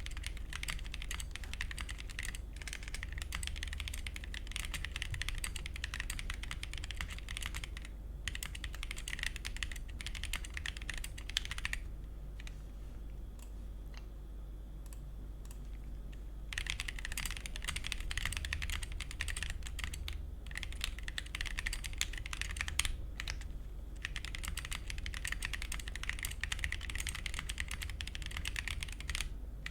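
Fast, continuous typing on a MonsGeek M1 aluminium 75% mechanical keyboard with Akko CS POM Pink linear switches and XDA-profile PBT keycaps. The typing thins to a few scattered keystrokes for about four seconds midway, then resumes at full pace.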